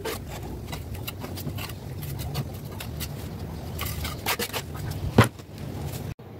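Scattered scrapes and taps of a trowel and hand working wet cement mortar onto a sculpture, with one sharper knock about five seconds in, over a steady low hum.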